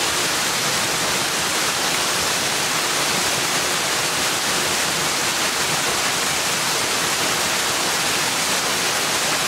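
Steady, even rush of a waterfall: water pouring onto rock and into a pool, with no changes.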